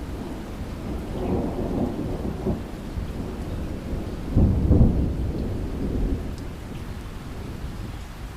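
Heavy rain falling steadily while thunder rumbles, its loudest peal about halfway through, then the rumble dies away near the end.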